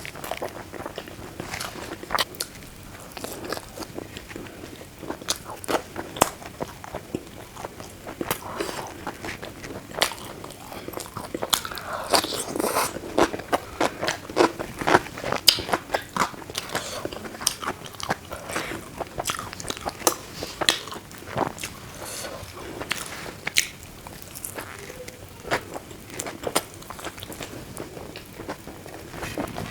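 Close-miked eating: steady, irregular chewing and biting with crunches and wet mouth clicks, busiest about halfway through.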